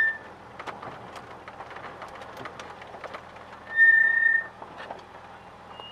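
Two steady, high-pitched whistle-like tones, a short one at the start and a longer one of almost a second about four seconds in, over the low hum of a car engine idling, with scattered small clicks.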